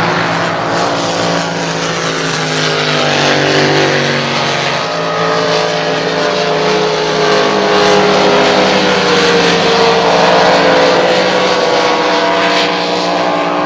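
Several racing engines running together at high revs, their pitches rising and falling as they pass and lap the track.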